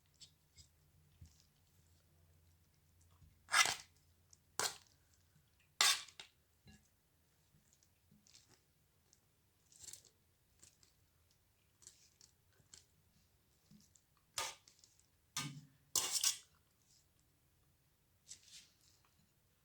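Scattered short taps and clinks of a kitchen utensil against a dish, a few sharp ones among many faint ticks, as steamed dried figs are handled and moved onto a plate.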